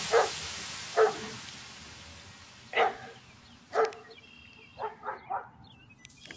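A dog barking, about seven short barks: single barks spaced a second or so apart, then three in quick succession near the end.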